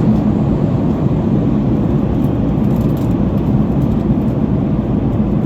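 Steady low noise of a jet airliner heard from inside the passenger cabin in flight: engine and airflow drone, even throughout.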